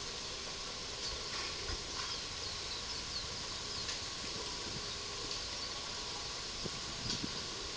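Steady outdoor background hiss with faint, scattered high chirps and a few light ticks.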